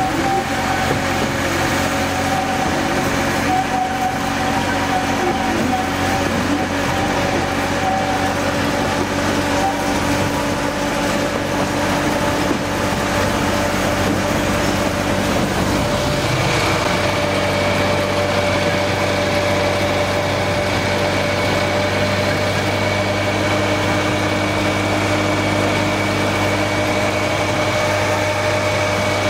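Hunslet narrow-gauge diesel locomotive engine running steadily while hauling the train; its note changes about halfway through.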